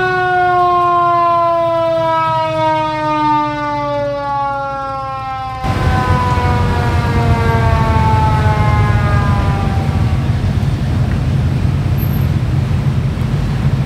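Mechanical siren spun up to full pitch, then coasting down, its tone sliding slowly lower and fading out about ten seconds in. Vehicle engines run underneath from about halfway.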